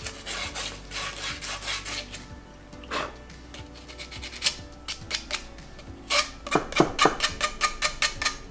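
Sandpaper scrubbing back and forth on copper pipe and a copper fitting, scratchy strokes in quick runs, the last run, from about six seconds in, faster and shorter. This cleans and roughens the copper so the solder will take.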